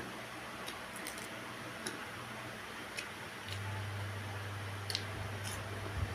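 Eating sounds: scattered sharp clicks of chewing and mouth noises, over a low steady hum that gets louder about halfway through.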